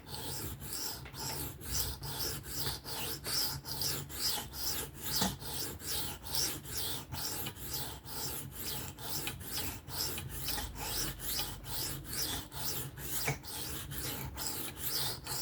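A 3V steel knife blade being sharpened freehand on a sharpening stone: steady back-and-forth scraping strokes, about three a second.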